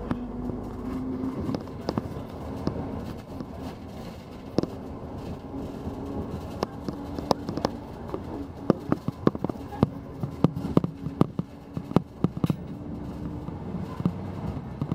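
Moving vehicle heard from inside: a steady low engine and road hum. Many sharp, irregular clicks and knocks come in from about six seconds in and are the loudest sounds.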